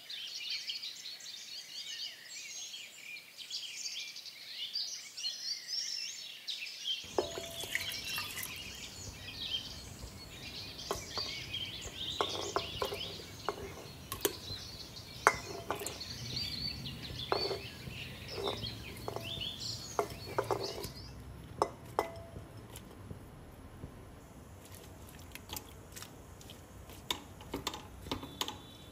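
Birds chirping until about three quarters of the way through. From about a quarter of the way in, scattered clinks and knocks as sliced raw green mango and its peels drop into a metal pot and are moved about with a slotted spoon.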